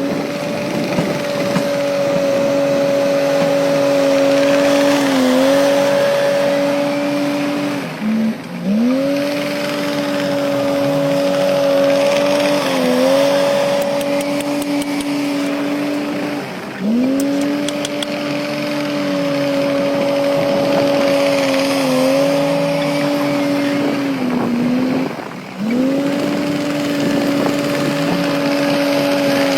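Heavy construction machine engine revving up and holding at high revs, with a short dip midway. It then drops off and repeats in nearly identical cycles about every eight and a half seconds.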